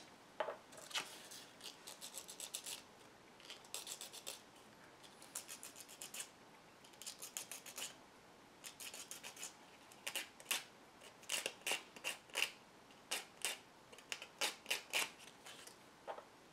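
Sandpaper rubbing the edge of a small 3D-printed plastic part by hand: faint, quick scratchy strokes in short bursts of several strokes each.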